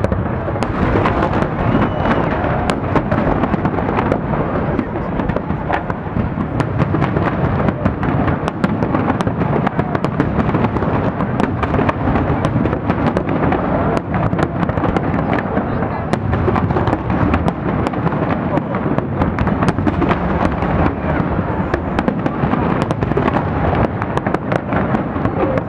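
Fireworks display: a dense, continuous barrage of shell bursts and crackling with no pauses, and crowd voices underneath.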